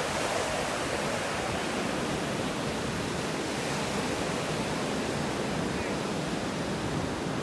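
Small surf breaking and washing up a sandy beach: a steady rushing wash with no single wave crash standing out.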